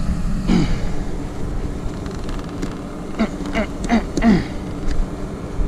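Track-hoe (tracked excavator) diesel engine running steadily, with several short falling squeals from the machine about half a second in and again in quick succession in the second half.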